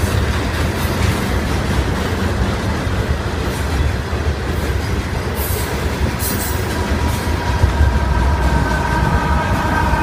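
Union Pacific freight train of loaded rock hopper cars passing close by, a steady low rumble of wheels on rail. Its GE Evolution-series locomotives come alongside near the end, and several steady tones rise in over the rumble about three-quarters of the way through.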